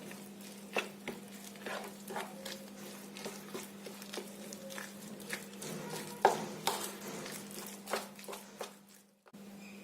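Spoon stirring a thick oats and gram-flour batter in a bowl, with irregular light clicks of the spoon against the bowl over a steady low hum.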